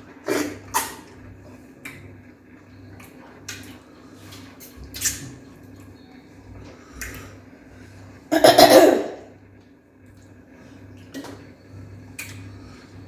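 Close-up eating noises of fufu with ogbono soup: short mouth clicks and smacks, with one louder, longer burst about eight and a half seconds in. A steady low hum runs underneath.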